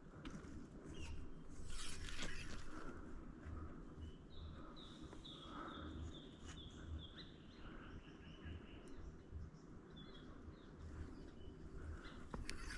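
Faint birds calling in eucalypt bush: short high chirps, with a run of about eight quick repeated notes in the middle. A brief rustle comes about two seconds in and another near the end.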